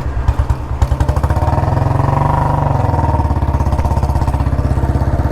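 Royal Enfield Bullet Electra 350's single-cylinder four-stroke engine firing unevenly for about a second, then catching and running, revved briefly around two seconds in and settling to a steady, even beat. The bike keeps stalling, which the owner blames on carburettor trouble.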